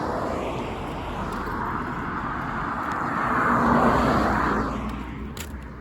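A vehicle passing by on the road: its tyre and engine noise swells to a peak a little under four seconds in, then fades away.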